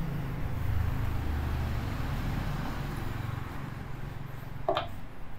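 Low, steady rumble of a vehicle engine, like traffic passing, with a brief higher sound near the end.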